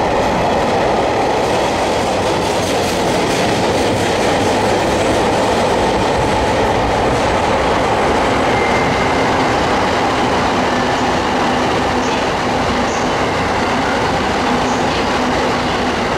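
A freight train of tank wagons rolling past: a steady loud rumble and clatter of steel wheels on the rails, easing slightly near the end as the last wagon goes by.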